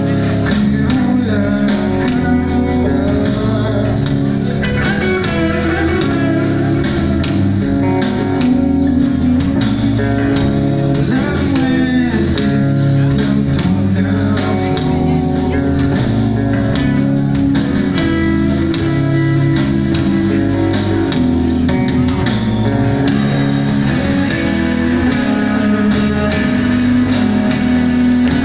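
A live rock band playing: electric guitars over a drum kit, a dense, continuous full-band sound.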